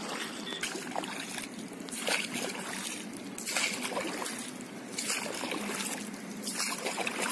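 Water rushing and splashing against the hull of a moving boat, in uneven surges.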